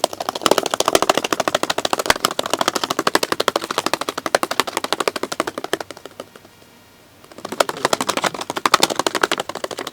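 Foley imitation of birds' wings flapping: a rapid fluttering of many flaps a second. It runs for about six seconds, stops for about a second, then starts again.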